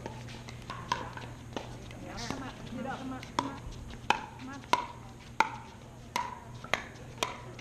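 Pickleball paddles hitting a plastic pickleball in a fast doubles rally: a string of sharp pocks, about nine hits, coming roughly every two-thirds of a second through the second half.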